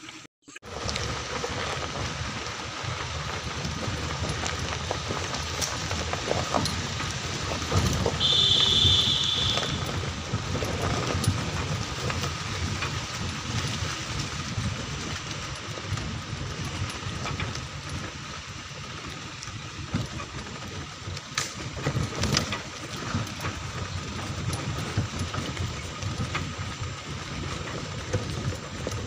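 Steady rumble and rattle of a vehicle travelling over a rough dirt track, with scattered knocks, and a brief high tone about eight seconds in.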